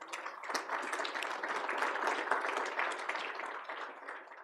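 Audience applauding: many hands clapping densely and steadily, cutting off suddenly near the end.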